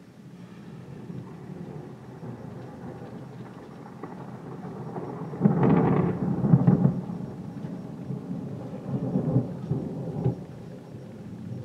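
Thunder breaks suddenly about halfway through and rumbles on for a couple of seconds, with a further rolling rumble near the end, over steady heavy rain.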